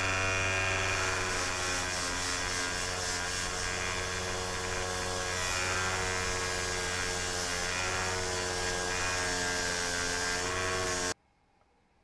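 Bench grinder running a wire brush wheel, a steady motor hum with a hiss, as a rusty metal sleeve is held against the spinning wire wheel to strip rust. It stops abruptly near the end.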